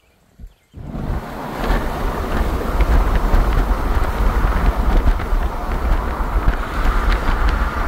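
Wind buffeting the microphone and road noise from a vehicle travelling at highway speed. It cuts in abruptly about a second in, with a heavy low rumble.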